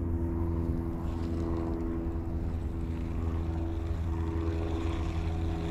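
A motor running steadily: an even low hum with several held tones that does not change.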